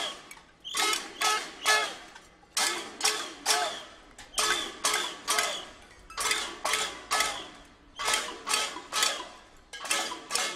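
Metal pot being banged in a cacerolada (protest pot-banging): sharp ringing clangs in short rhythmic groups of three or four, repeated over and over.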